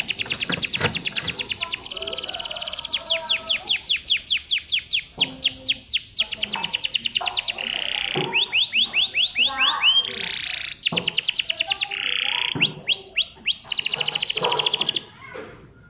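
Canary singing a long, fast song: rapid trills and rolls and runs of quick down-sweeping notes, switching to a new phrase every second or so, breaking off near the end.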